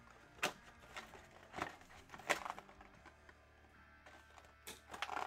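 Cardboard trading-card hobby box being handled: about six short, sharp crackles and rustles of cardboard and packaging, two of them close together near the end.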